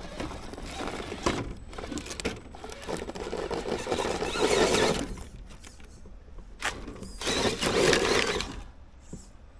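Loose beach pebbles crunching and clattering under the tyres of a 1/8-scale RC crawler as it drives over them. The crunching grows louder in two surges, about four seconds in and again near eight seconds.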